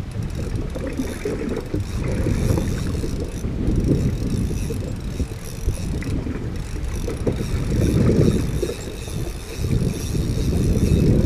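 Wind buffeting the microphone on an open boat at sea: a loud, low, gusty rumble that swells and fades every few seconds, with no engine running.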